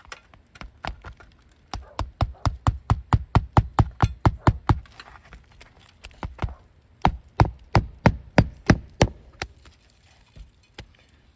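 Hammer driving roofing nails into asphalt shingles as a lifted shingle is re-nailed flush: two quick runs of sharp strikes, about four a second, with a pause between and a few lighter taps around them.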